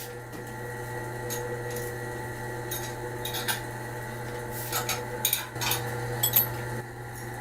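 CNC lathe running with a steady machine hum, with scattered metallic clinks and rattles throughout.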